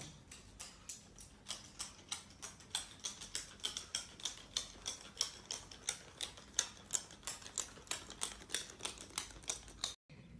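A rapid run of light clicks or taps, about four a second, uneven in loudness.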